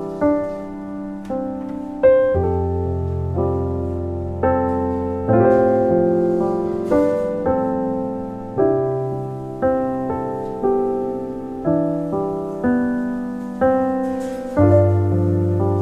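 Slow solo piano music, with a note or chord struck about once a second and left to ring out.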